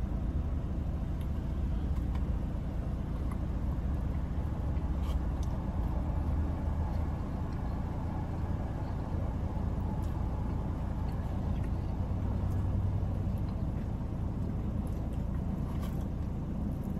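Steady low vehicle rumble heard inside a car's cabin, with a few faint clicks.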